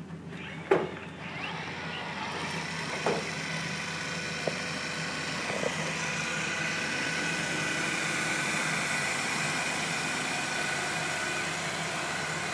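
Narwal Freo robot vacuum-mop running, a steady motor and suction-fan whirr with a few high whining tones. There is a sharp knock about a second in, then a few fainter clicks over the next several seconds.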